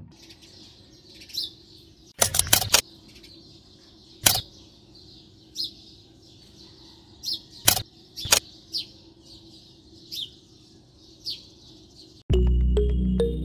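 Birds chirping steadily in the background, with a few sharp clicks and snaps as the thin wooden sticks of a mould are pulled away from a small cast concrete pillar: a quick run of three or four about two seconds in, then single ones. Music comes in near the end.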